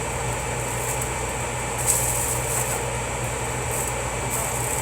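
Sausages sizzling and crackling in a frying pan over a steady low fan hum, with one brief louder crackle about two seconds in.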